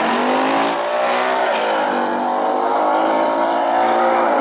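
Two muscle cars launching off a drag-strip start line and accelerating hard at full throttle. The engines' pitch climbs steadily and drops sharply at each upshift, about one and a half and two seconds in, then climbs again.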